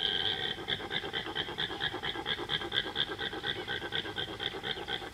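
A wild animal's call: a short held note that breaks, about half a second in, into a fast, even run of pulses at about seven a second.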